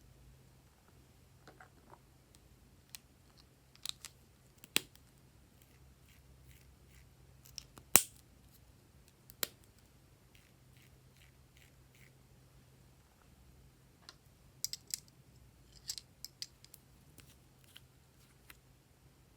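Glossy slime being worked by hand, with scattered sticky clicks and pops. The sharpest pop comes about eight seconds in, and a cluster of smaller ones comes near the end.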